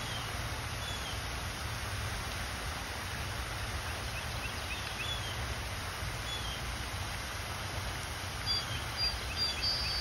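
Small birds chirping in short, high calls, a few scattered through and a quick run of them near the end, over a steady outdoor hiss and low rumble.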